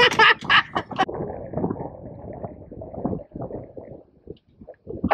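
Camera handling noise on a small boat: irregular knocks and rustles, loudest in the first second, over a low, uneven sound of wind and water.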